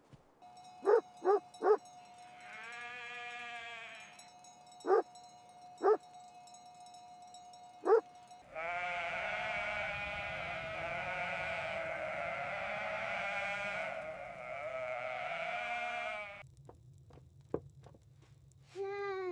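Animal calls: several short, sharp pitched cries in the first eight seconds, then one long wavering bleat-like call lasting about eight seconds, and a short falling call near the end.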